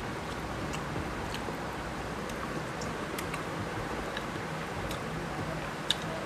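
Faint clicks and small wet sounds of fingers mixing rice and curry on a glass plate and of eating, over a steady background hum; one sharper click about six seconds in.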